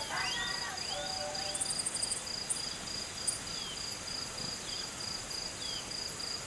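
Cricket chirping steadily, a high pulsed note about three times a second, with faint falling chirps now and then. Music fades out in the first second.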